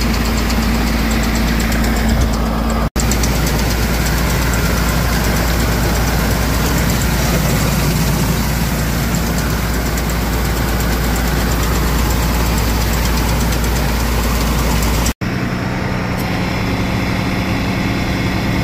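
Hydraulic-driven grain auger and the engine powering it running steadily while loading canola into a semi trailer: a constant low engine hum under a dense mechanical clatter, with two brief dropouts about 3 seconds in and near the end.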